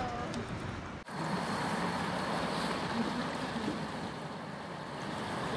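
Water lapping around a small boat, with wind on the microphone and the low, steady running of a passing canal tour boat's engine. A brief drop-out about a second in.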